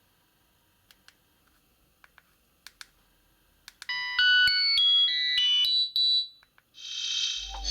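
A few faint clicks, then a myPhone 6310 ringtone plays: a short melody of quick electronic beeping notes for about two seconds before cutting off. Near the end a buzzier, fuller ringtone starts.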